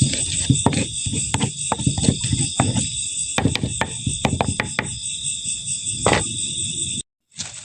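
Crickets chirping steadily, with many irregular knocks and clatters over them. The sound cuts out abruptly near the end.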